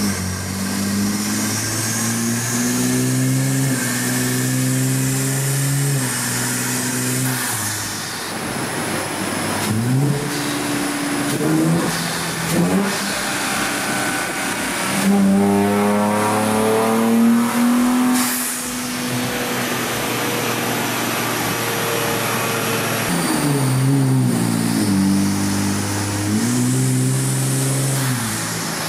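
Nissan Z's twin-turbo 3.0-litre VR30 V6, fitted with open cone-filter shorty intakes, running on a chassis dyno. The revs climb in several steps, then rise in one long pull that cuts off sharply about 18 seconds in, and climb in steps again near the end.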